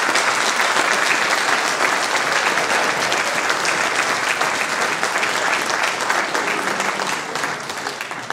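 Audience applauding: dense clapping from a roomful of people that begins to die down near the end.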